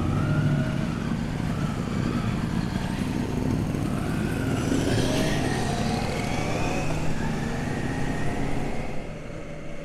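Triumph motorcycle engines pulling away together, their pitch rising and falling through the gears.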